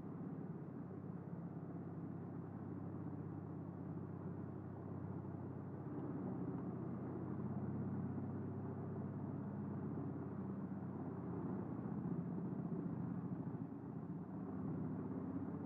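Eschlböck Biber 84 truck-mounted wood chipper running steadily while chipping scrap boards. It makes a low, steady drone that gets louder for a few seconds near the middle and again later.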